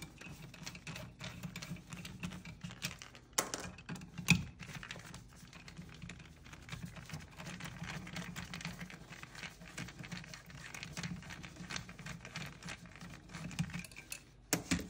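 Torx screwdriver backing out the retainer bolts from a copper receiver welding mandrel: a steady stream of small clicks and scrapes from the driver and threads, with a few sharper knocks.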